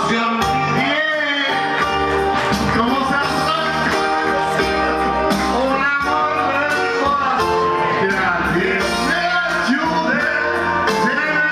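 Men singing into a microphone over backing music, amplified through a PA speaker.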